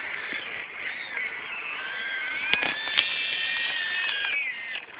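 A radio-controlled model Hitachi excavator's motors whining as it digs. The whine climbs in pitch about two seconds in, holds, then drops away near the end, with a couple of sharp clicks midway.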